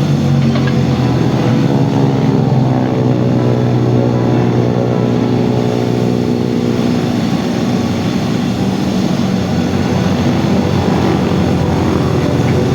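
A large engine running steadily, its pitch drifting slightly.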